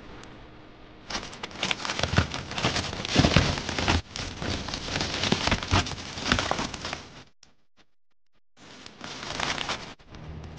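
Crinkling and rustling of a foil-faced bubble insulation sheet being handled and pulled away. The crinkling starts about a second in, stops briefly near three-quarters of the way through, then resumes for a moment.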